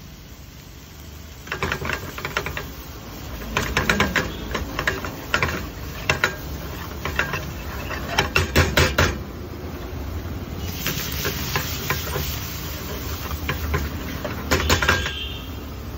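Metal ladle knocking and scraping against a steel frying pan in quick runs, stirring egg bhurji into a simmering masala gravy, with a steady hiss from the pan in a gap between the runs.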